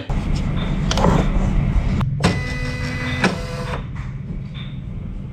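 A small electric motor whirs with a steady whine for about a second and a half near the middle, over a low rumble and a few clicks of handling noise.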